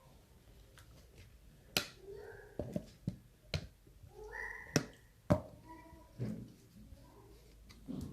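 Dishes and utensils clinking and knocking as preserved lemons are handled: a string of sharp separate clicks over a few seconds, with a brief high pitched squeal-like sound near the middle.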